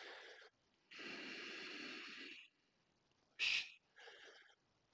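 A man's breathing, faint and close to the microphone: a long breath lasting about a second and a half, then two short breaths near the end.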